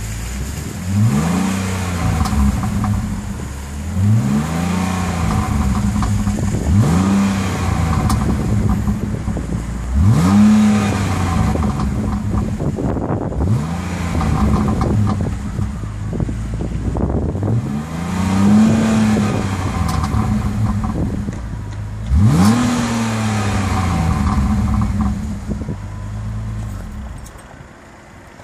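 BMW 330Ci's 3.0-litre straight-six on its stock exhaust with the exhaust flap open, idling and blipped about seven times, each rev rising quickly and falling back to idle. The sound quietens near the end.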